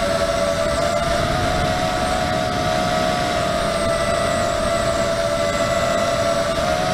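Brushless motors and propellers of a 250-size FPV racing quadcopter whining steadily in flight, heard from the onboard camera over a rush of wind. The whine shifts slightly in pitch with throttle, rising briefly about a second in and again near the end.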